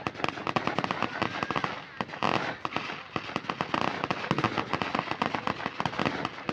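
Fireworks going off: a dense, continuous run of sharp pops and cracks, many every second.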